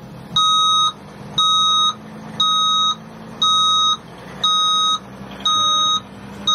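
A 2017 Mercedes Sprinter van's reversing alarm beeping steadily while the van backs up: one half-second beep about every second, seven in all.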